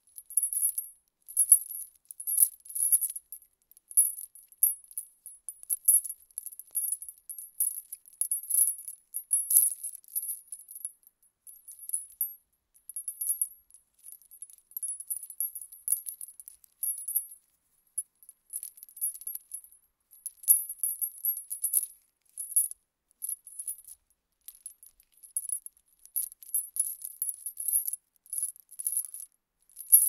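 Small metal chain jingling, its links clinking together in repeated bursts with short pauses between. The clinks are thin and high-pitched.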